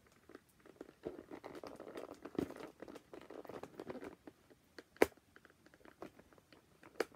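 Cardboard toy box being handled and worked open: a few seconds of rustling, crinkling and scraping, then a sharp click about five seconds in and another near the end.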